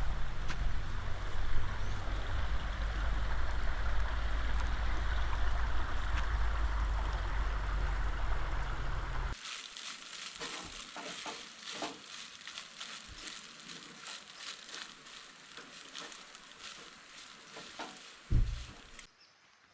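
A steady low rumble with hiss, which cuts off abruptly about nine seconds in. Then food sizzling and crackling in a pan, with many irregular small pops and one louder knock near the end.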